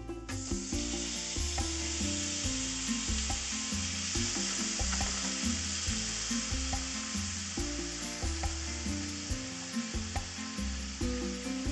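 Minced meat sizzling in hot oil with chopped garlic in a frying pan. The sizzle starts suddenly as the meat lands, holds steady as it is stirred with chopsticks, with a few light taps. Background music plays underneath.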